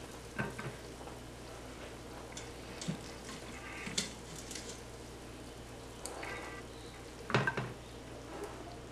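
Metal tongs clicking and scraping against a stainless steel Instant Pot inner pot as ribs are lifted out, a few sharp knocks with the loudest near the end, over a faint steady sizzle from the hot pot just off air frying.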